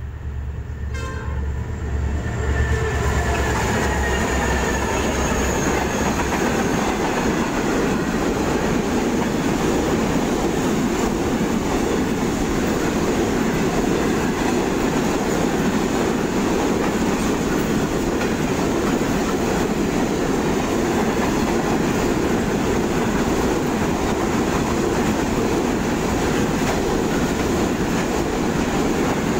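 Three XR-class diesel locomotives on a grain train pass at speed, their low engine hum giving way about two or three seconds in. After that comes a steady rumble and clatter of 40 grain wagons rolling past on the rails.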